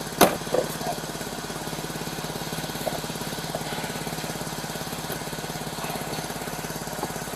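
Chevrolet Blazer's engine idling steadily with an even, rapid pulse. There is a sharp click just after the start and a softer knock soon after.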